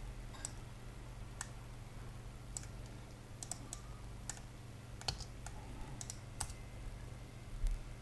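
Irregular clicking of a computer mouse and keyboard, about a dozen clicks, some in quick pairs, over a low steady electrical hum.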